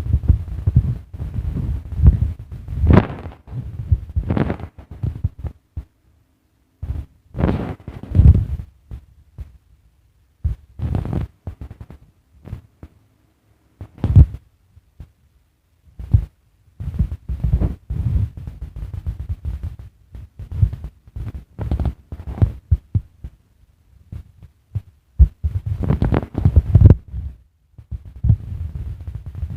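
Irregular low thumps and sharper knocks, coming in uneven clusters with brief quiet gaps.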